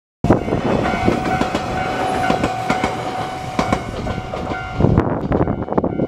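Two-car train passing close through a level crossing, its wheels clattering over the rail joints, with a heavy cluster of knocks near the end as the last wheels cross. A level-crossing warning bell rings steadily throughout.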